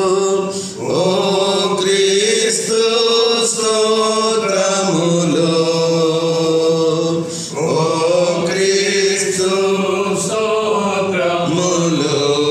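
Voices singing a slow liturgical chant, long held notes sliding from one pitch to the next.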